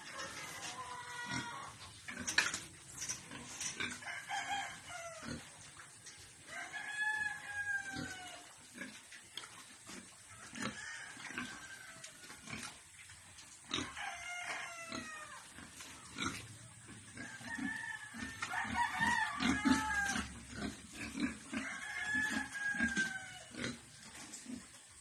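A rooster crowing about four times, each crow a long call that rises and falls, over short grunts and squeals from piglets in their pens.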